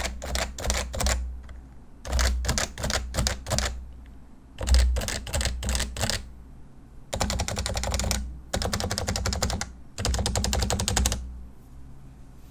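Topre electrostatic-capacitive keyboard (stock Realforce R2 with 45 g domes) being typed on. Three short bursts of keystrokes are followed by three fast runs of rapid presses, and the typing stops near the end.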